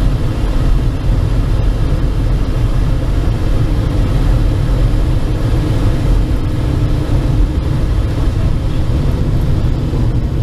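Steady, loud low drone inside a light aircraft cabin in flight, with no breaks or sudden events.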